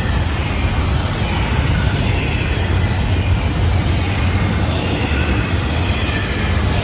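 Double-stack intermodal freight cars rolling past close by: a steady rumble of steel wheels on the rails.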